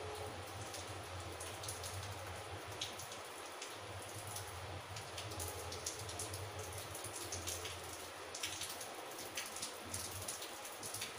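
Rain falling outside: a steady hiss with scattered, irregular drop ticks. A low hum comes and goes underneath.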